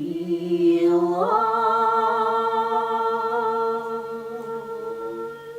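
Two women singing a Russian folk song in harmony, stepping up about a second in to a long held final note that fades near the end.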